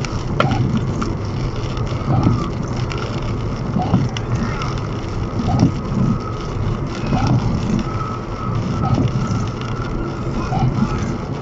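Steady tyre and road noise inside an electric Tesla Model S cruising at highway speed on a wet road. A short swish repeats about once a second.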